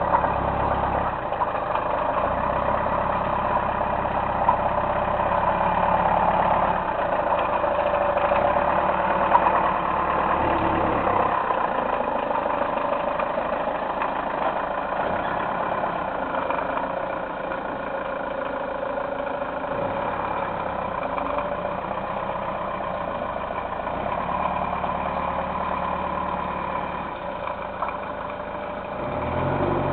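Van engine running steadily, with a couple of brief sharp clicks in the first ten seconds.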